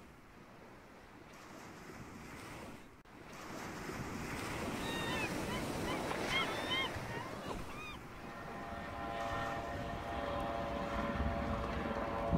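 Wind and water noise like waves, with a few short chirping bird calls in the middle. From about two-thirds of the way in, a steady humming tone joins it.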